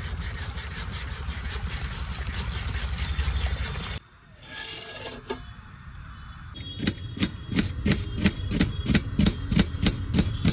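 Water pouring in a steady stream from a hand-pump dispenser on a water jug into a steel pot of rice. It stops suddenly about four seconds in. Later, a knife chops onions on a steel plate, about three chops a second.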